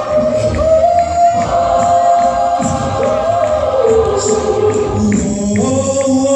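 Gospel choir singing long, held notes in harmony over a light, steady percussion beat of about two clicks a second.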